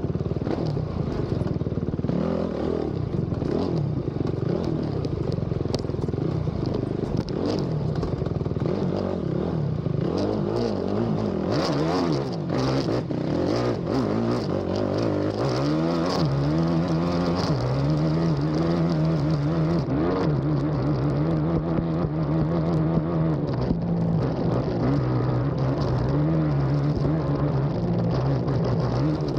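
Race ATV engine running hard at speed, the revs rising and falling over rough ground with clattering knocks through the first half. From about halfway it holds a steadier high rev with small rises and dips.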